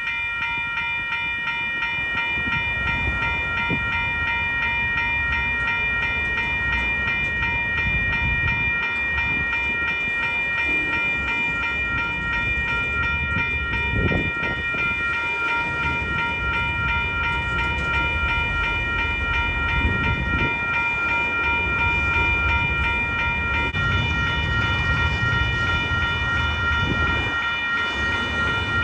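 Western-Cullen-Hayes electronic railroad crossing bell ringing with fast, even strokes, over a steady low rumble.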